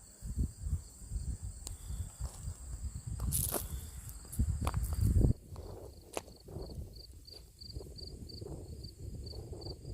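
Footsteps on the ground, with insects calling: a steady high hum at first, then a pulsing chirp about three to four times a second from halfway on. A louder low rumble comes about four to five seconds in.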